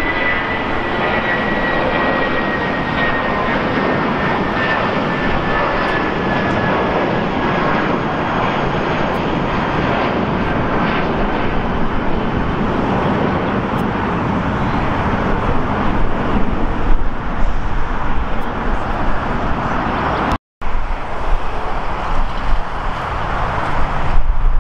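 Jet airliner engines at takeoff power: a steady, dense rush of engine noise with a thin whine slowly falling in pitch over the first several seconds. The sound cuts out completely for a moment about twenty seconds in.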